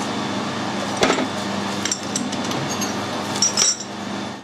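Sharp metal clinks as a thin steel ring is handled and pulled out of a lathe's chuck jaws, several knocks a second or so apart, over a steady mechanical hum.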